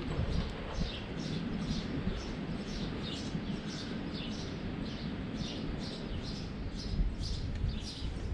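A bird chirping over and over, short high downward chirps about two or three a second, over a low steady background rumble.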